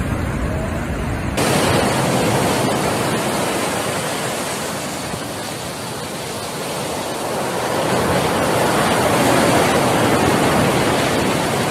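Storm surf breaking on the shore: a loud, steady rush of water noise. It starts with a low buffeting of wind on the microphone, then about a second and a half in turns abruptly into a brighter hiss of surf that eases a little midway and swells again near the end.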